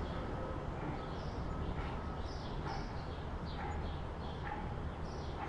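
Outdoor city ambience: small birds chirping repeatedly in short, high calls over a steady low rumble of distant traffic.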